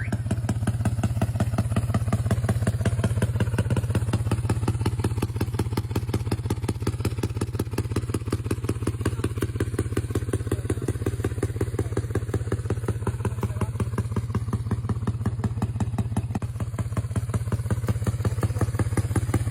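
Yamaha Mio scooter's single-cylinder four-stroke engine idling through a Daeng full-titanium aftermarket exhaust, a steady rapid pulsing beat from the pipe.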